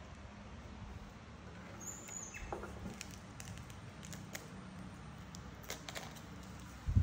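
A macaque biting and handling a green lotus seed pod: scattered small clicks and crunches over a low steady hum, with a brief high squeak about two seconds in and a sharp knock at the end.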